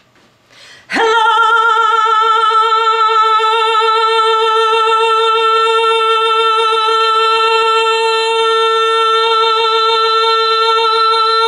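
A woman sings one loud, long operatic-style note with vibrato, sliding up into it about a second in and then holding it at a steady pitch.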